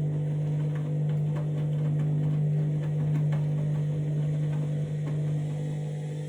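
Candy washing machine's drum on a short final spin with an unbalanced load: a steady low motor hum with frequent knocks and rattles as the machine bounces, easing off near the end.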